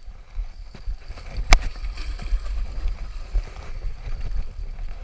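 Wind buffeting the microphone and small waves washing against rocks at the waterline, with one sharp knock about a second and a half in.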